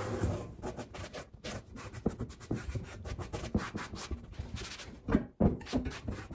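Microfibre cloth rubbing along a dusty, rusty square steel-tube frame in quick, irregular wiping strokes, with a louder bump about five seconds in.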